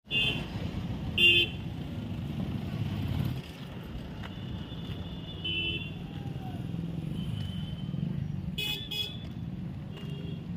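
Road traffic passing, with a steady rumble of engines and tyres, and short high-pitched vehicle horns tooting several times, several in quick succession near the end.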